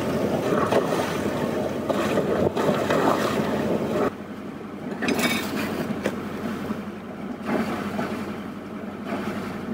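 Sailing yacht under way: a rushing wash of water and wind buffeting the microphone, swelling and easing, over a steady low hum.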